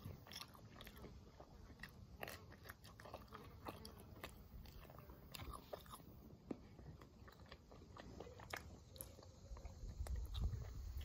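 A person chewing a mouthful of pizza close to the microphone: faint, irregular crunchy clicks of chewing. A low rumble comes in near the end.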